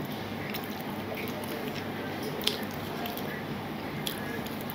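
Wet squishing and chewing of eating by hand: fingers mixing rice with dal and curry on a steel plate, with scattered small clicks and one sharp click about two and a half seconds in.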